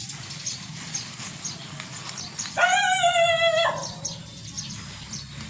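A dog giving one drawn-out, yelping bark about a second long, partway through, falling slightly in pitch, barking at someone who seems to have arrived next door.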